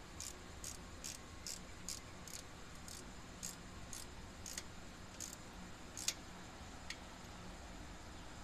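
Hand socket ratchet slowly tightening small carburetor fuel-bowl bolts, its pawl clicking evenly about twice a second. The clicks thin out after about five seconds, with a sharper click about six seconds in.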